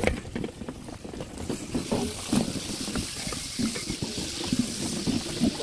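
Vegetables sizzling and bubbling in liquid in a large aluminium cooking pot, stirred with a wooden spoon, with irregular knocks and scrapes through the steady hiss.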